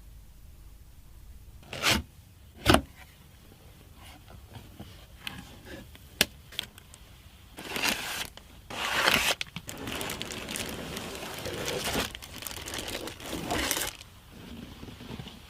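Handling of product packaging: two sharp knocks, a few light clicks, then several seconds of crinkling, tearing and scraping of packing material.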